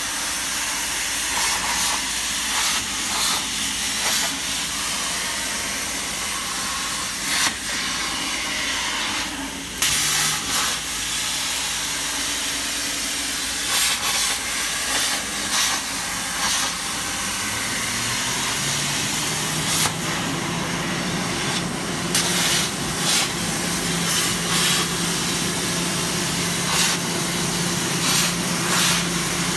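Hypertherm 65 A CNC plasma cutter torch cutting steel sheet: a steady, loud hiss from the plasma arc and its air jet, broken by short sharp crackles. A low steady hum joins about two-thirds of the way through.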